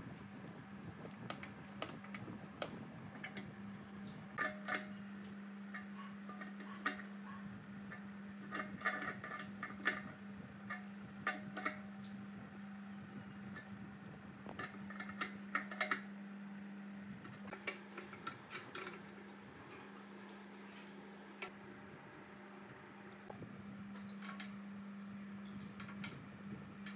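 Metal fittings and a pressure switch being handled, threaded and screwed onto an air compressor tank: scattered small clicks, taps and clinks over a steady low hum, with a few short high squeaks.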